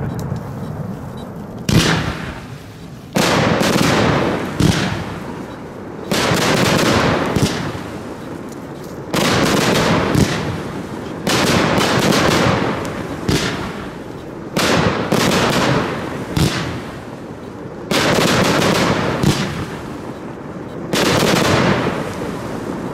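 Fireworks heard close to the firing site: a run of shells bursting with sharp bangs every second or two, each followed by a dense crackling tail.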